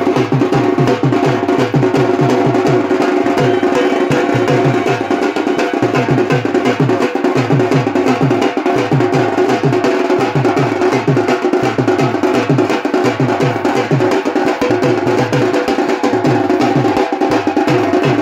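Music with a fast, steady drum beat of about four strokes a second.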